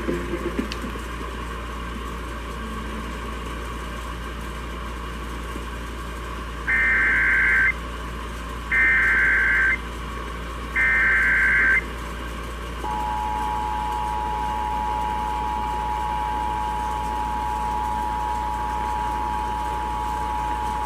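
Emergency Alert System activation heard over AM radio. First come three one-second bursts of SAME digital header data, buzzy data tones. Then, from about thirteen seconds in, the EAS two-tone attention signal: two steady tones sounding together at 853 and 960 Hz. A steady radio hiss lies under both.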